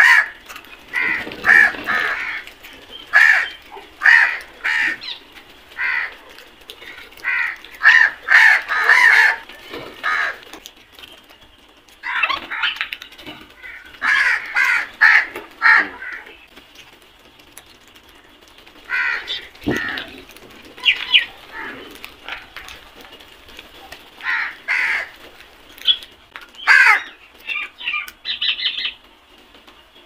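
A flock of house crows cawing: many short, harsh caws overlapping in clusters, with brief lulls between the clusters.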